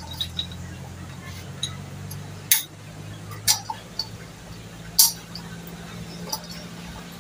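Sharp metallic clinks and taps of parts and tools being handled on a Mitsubishi 4DR5 diesel engine, the loudest about two and a half, three and a half and five seconds in. A steady low hum runs under them.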